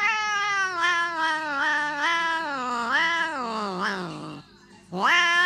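Domestic cat yowling in one long drawn-out call that wavers up and down in pitch and slides down at the end. After a short pause it starts a second yowl that rises in pitch near the end.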